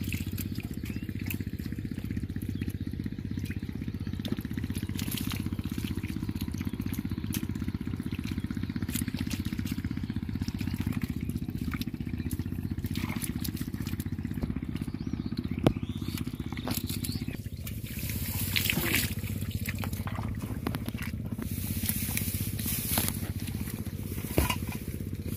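Engine-driven water pump running steadily, dewatering the pond, with scattered clicks and wet splashes in the mud over it.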